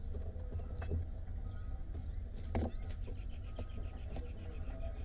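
Barn owl nestlings moving and feeding inside a wooden nest box: occasional scrapes and knocks over a steady low hum, with a fast, even run of short high ticks starting about three seconds in.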